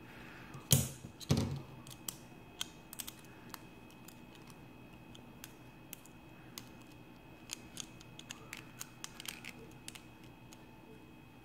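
Small metal clicks and taps of a nut driver working a nut on a hand-held assembly of steel plates, bolts and plastic gears, with two louder knocks about a second in.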